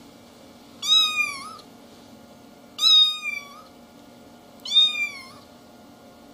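Young kitten mewing: three high-pitched mews about two seconds apart, each dropping in pitch at the end.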